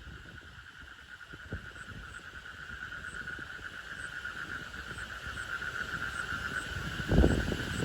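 Frog calling in a continuous, fast-pulsing high trill that grows steadily louder. A dull low thump comes about seven seconds in.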